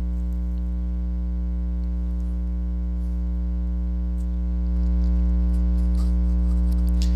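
Steady electrical mains hum: a low buzz with many evenly spaced overtones, growing a little louder about five seconds in.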